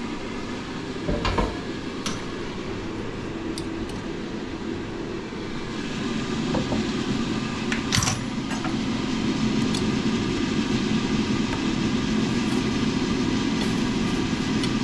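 Ninja dual-basket air fryer's fan running steadily in its cool-down cycle, the hum growing louder about six seconds in. A knock about a second in and a sharp clack around eight seconds come from handling the air fryer basket and the metal bowl.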